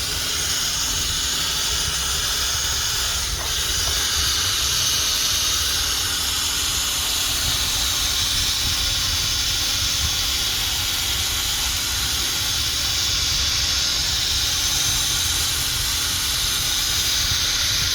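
Power drill spinning a foam buffing pad against a plastic headlight lens, a steady whirring hiss as it polishes the lens with correction compound after wet sanding.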